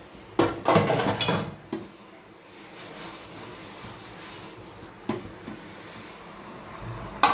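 Steel pan-lifting tongs clattering against a small aluminium pan on a gas stove. There is a burst of metallic clinks and scraping about half a second in, and single clinks about five seconds in and near the end. A faint steady hiss from the pan of sugar water boiling on the burner runs underneath.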